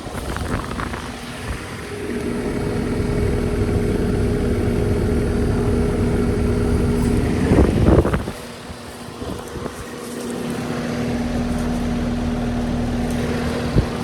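1988 Rheem central air conditioner running: a steady low electrical hum under fan rush. It builds up about two seconds in, then breaks off after a short loud burst a little past halfway, and the hum builds back up about three seconds later.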